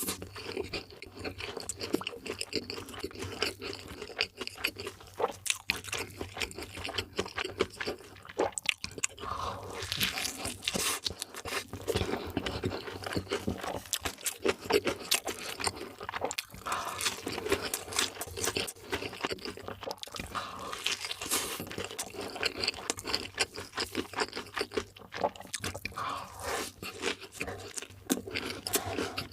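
Close-miked eating sounds: crunchy bites and chewing of fast food, a continuous run of small crackles.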